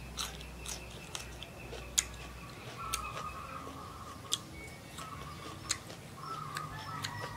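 Close-up mouth sounds of chewing crisp fried mole crickets and raw red chilli: sharp, irregular crunchy clicks, about one a second.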